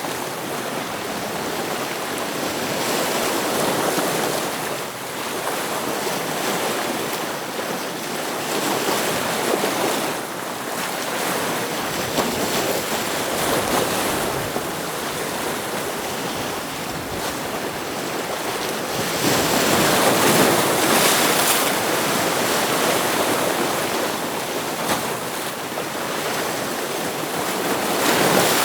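Ocean waves washing in against rocks, a steady surf noise swelling and easing every few seconds, with a larger surge about twenty seconds in.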